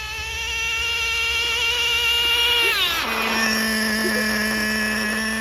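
Small nitro glow engine of an RC car running at high revs with a high, steady whine; about three seconds in its pitch falls and it settles into a steady lower note.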